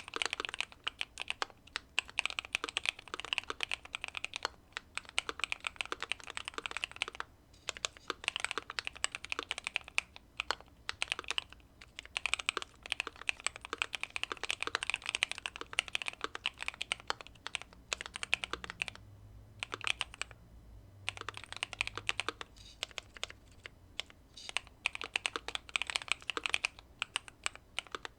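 Keychron Q2 aluminium mechanical keyboard with factory-lubed Pearl Lemon switches, tape mod and case foam, being typed on in fast runs of keystrokes with short pauses between them.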